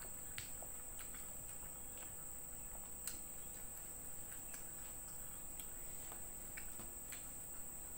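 Quiet eating sounds: soft chewing and scattered sharp mouth and hand clicks as boiled cassava leaves are picked up, over a steady high-pitched drone of insects.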